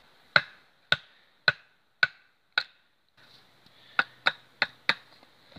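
Batoning: a wooden baton striking the spine of a large knife, driving the blade down through a short upright length of branch to split it. Five sharp knocks about half a second apart, a short pause, then four quicker knocks.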